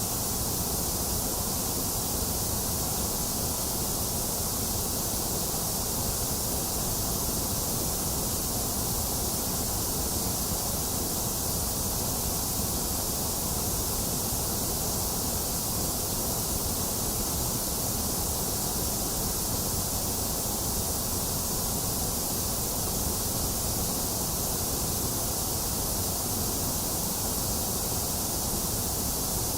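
Steady, unchanging synthetic white noise, a constant hiss that is brightest in the treble and has a hollow in the middle range.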